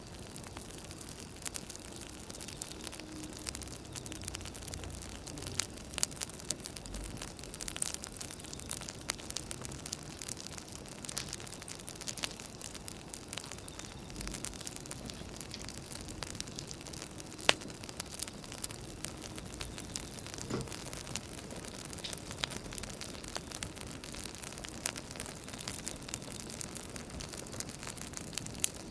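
Wood fire crackling: irregular sharp pops and snaps over a steady hiss, with one louder pop a little past the middle.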